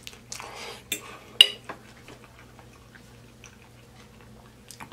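Close-up eating sounds of a mouthful of cheese-covered chili fries being chewed, with a few sharp clicks in the first second and a half, the loudest about a second and a half in. After that it goes mostly quiet.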